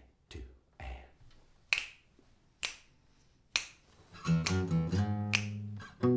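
Finger snaps keeping a steady beat, about one a second. An acoustic guitar starts playing about four seconds in, with the snaps continuing on the beat.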